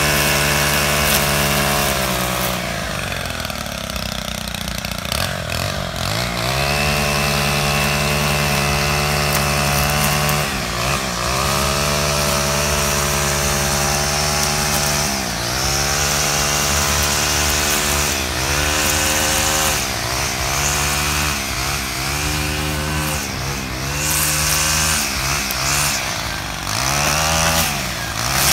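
Small two-stroke engine of handheld lawn equipment running at high revs. The throttle is repeatedly eased off and opened again, more often in the second half.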